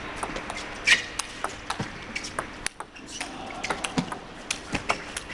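Table tennis rally: the celluloid ball clicks sharply and irregularly off the rackets and the table, many hits in a few seconds. A short squeak comes about a second in.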